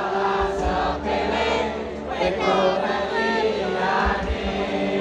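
A large concert crowd singing a song together on its own, many voices in unison, over the band's music.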